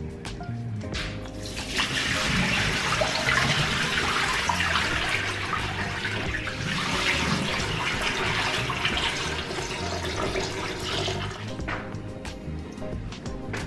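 Water running from a kitchen tap into the sink as a glass fishbowl and its gravel are rinsed. It starts about a second and a half in and stops near the end, with background music under it.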